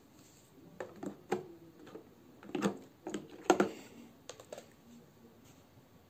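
Rear filter frame of a Delta Lux DL-0836 cyclone vacuum cleaner being fitted back into its plastic housing: an irregular series of plastic clicks and knocks, the loudest about three and a half seconds in.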